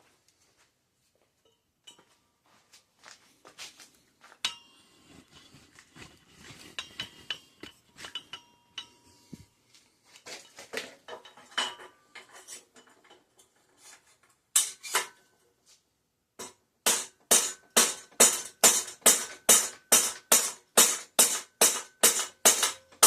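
Mallet strikes on metal knocking the headset cups out of a bicycle's head tube. Scattered clinks and taps come first; about two thirds of the way in they become a steady hammering of about three blows a second, each with a short metallic ring.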